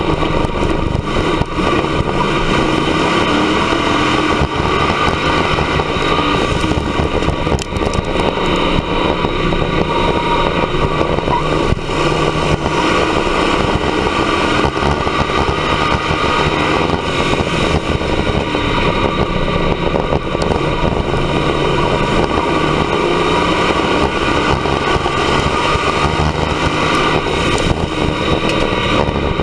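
Dirt-track race car's engine at racing speed, heard from inside the cockpit. It runs loud and continuous, its note rising and falling as the driver gets on and off the throttle through the turns, over a steady rush of tyre and wind noise.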